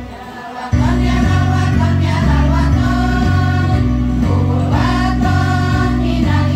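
Women's choir singing a sholawat (Islamic devotional song) over a musical accompaniment with a steady, rhythmic bass line. The music drops out briefly at the start and comes back in under a second later.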